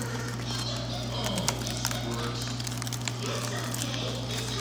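Aluminium foil wrapped around a grilled fish crinkling and crackling as hands peel it open, in many small sharp crackles.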